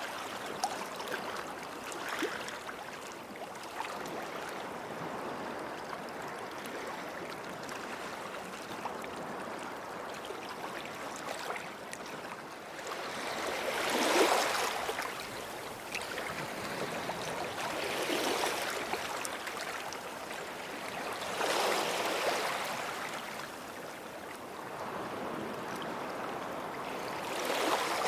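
Small waves washing onto a beach, with a steady wash and four swells as waves break and rush up the sand: about 14 s in (the loudest), 18 s, 22 s and near the end.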